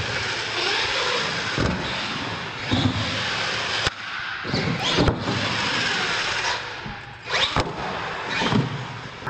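R/C monster truck's electric motors whining and tyres hissing as the throttle is worked on and off. From about the middle on, several sharp clattering knocks come as the truck lands jumps and hits the ramps and concrete.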